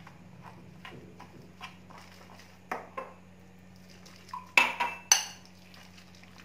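A metal spoon stirring thick gram-flour batter in a glass bowl, knocking against the glass in a string of light clinks. Two louder, ringing clinks come about four and a half and five seconds in. A steady low hum runs underneath.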